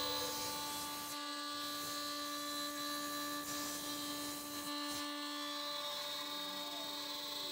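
CNC router spindle running with a quarter-inch straight bit, routing the outer profile of a wooden part. It makes a steady whine with several high tones over a hiss of cutting noise.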